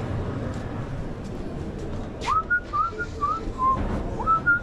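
A person whistling a tune in short notes, each swooping up into a brief held note, starting about two seconds in, over a steady background hum with a few light clinks.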